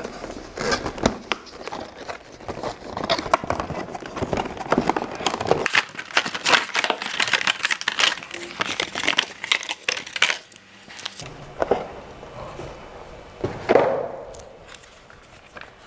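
Cardboard box and plastic packaging being handled during an unboxing: crinkling and crackling with small clicks and knocks, and a louder rustle near the end.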